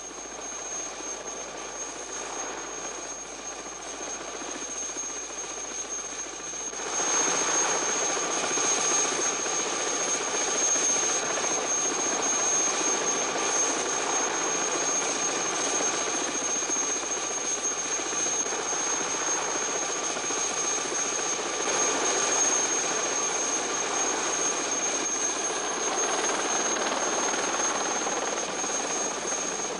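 Light helicopter running steadily, an engine and rotor drone with a thin high whine, growing louder about seven seconds in.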